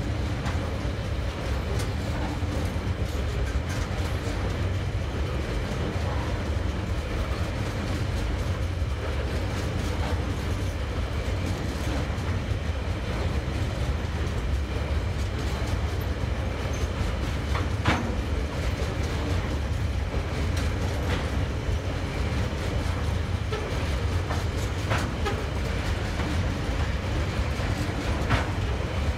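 Freight train's loaded container flat wagons rolling past at close range: a steady low rumble of steel wheels on rail, with a few sharp clicks from the wheels, the clearest about 18 and 28 seconds in.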